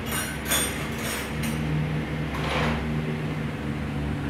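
Light metallic clinks and rings of steel hand tools in the first second and a half, with a softer rustle about two and a half seconds in, over a steady low mechanical hum.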